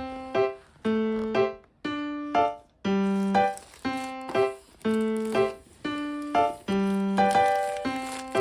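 Background music: a light piano or keyboard tune in short, bouncy notes, a long note then a short one about once a second, with brief gaps between.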